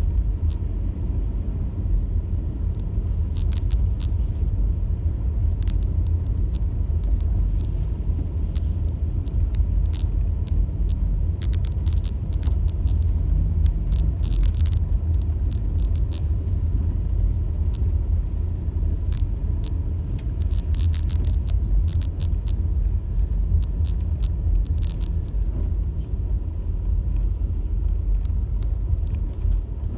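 Car driving on snowy roads: a steady low rumble of tyres and engine, with scattered short ticks and clicks.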